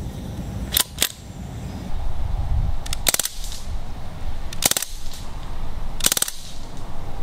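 Crosman DPMS Panther CO2 BB rifle firing three short fully automatic bursts, each a rapid rattle of shots lasting about a third of a second, roughly one and a half seconds apart. Two sharp clicks come about a second in.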